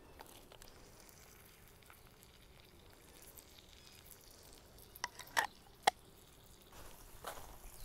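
Steak frying in butter in a cast iron skillet over a wood fire, a faint steady sizzle. A few sharp clicks come about five to six seconds in.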